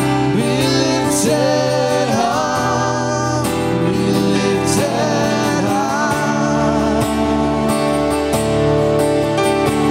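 Worship song played by a band: a voice sings a melody with vibrato over sustained chords, and the instruments carry on alone for the last few seconds.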